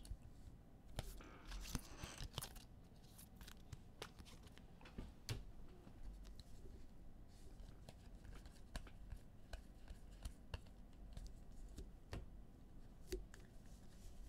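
Trading cards handled by hand: faint, scattered clicks and rustles of card stock as a stack is flipped through, with a short sliding rustle about two seconds in.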